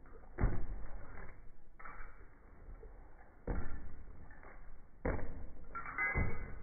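Bare-fist punches thudding into a hanging heavy punching bag: about four hits, spaced a second or more apart.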